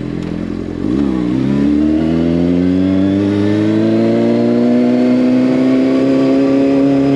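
Motorcycle engine under way, dropping in pitch briefly about a second in, like a gear change, then pulling steadily with a slow, even rise in revs.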